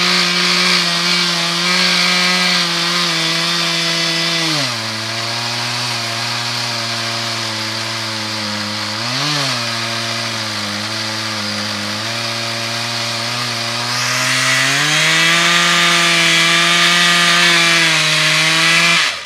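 Two-stroke chainsaw mounted in an Alaskan chainsaw mill, ripping a monkey puzzle log lengthwise. The engine drops in pitch about five seconds in as it takes the load of the cut, rises briefly near the middle, climbs back to higher revs near the end, then cuts off suddenly.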